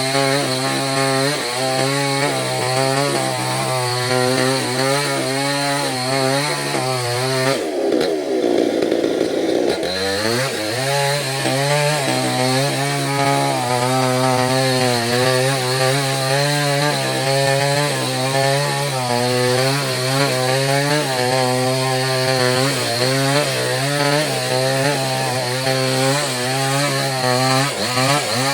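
Small chainsaw cutting through mahogany wood, its engine pitch wavering as the chain bites under load. About eight seconds in, the revs drop briefly, then climb back and the cutting goes on.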